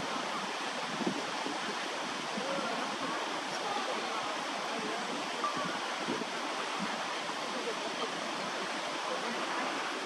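Steady rush of flowing water, even in level throughout.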